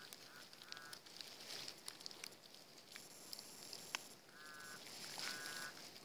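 Handheld pinpointer set to vibrate, buzzing faintly in short pulses as it is probed into loose soil: the alert for a metal target close by, here a copper coin. The pulses come twice near the start and twice, longer, in the second half, among light scrapes and clicks of the probe in the dirt.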